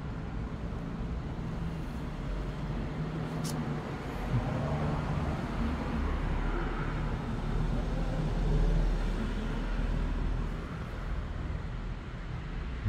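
Low, steady rumble of road traffic, swelling a little past the middle, with one brief click a few seconds in.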